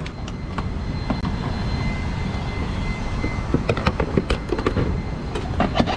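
Car engine running, heard inside the cabin as a steady low rumble, with scattered small clicks and rustles.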